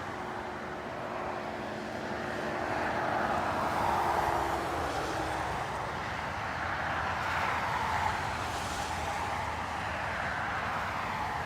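Road traffic passing: a steady rush of vehicles that swells twice, about three to four seconds in and again about seven to eight seconds in, with a faint steady hum at first.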